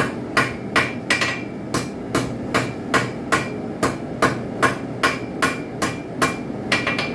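Blacksmith's hand hammer striking a railroad spike on an anvil at a steady pace of about two to three blows a second, drawing the end of the spike out to a point. Some blows leave a brief metallic ring.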